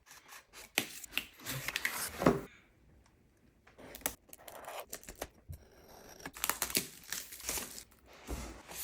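Keyboard packaging being unboxed: irregular tearing, crinkling and rustling of packaging with sharp clicks, in two bouts with a pause about three seconds in.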